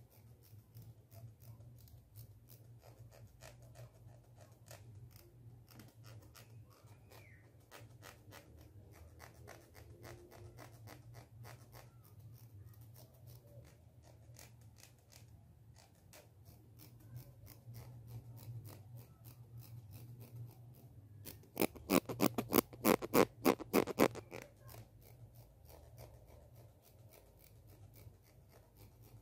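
Plastic comb scratched right at the microphone, its teeth clicking in a long run of rapid little clicks, with a much louder burst of clicks for about two seconds near 22 seconds in.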